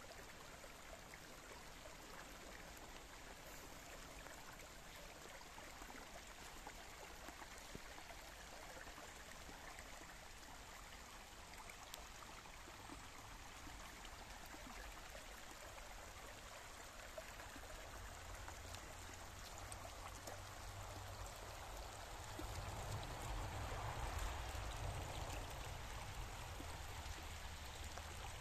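Small woodland brook babbling over shallow riffles and stones, a steady water noise that swells a little about three quarters of the way through, with a low rumble underneath in the second half.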